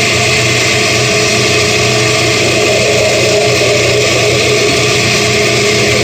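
Electric countertop blender motor running steadily at full speed, chopping red onion and lemon with a splash of water.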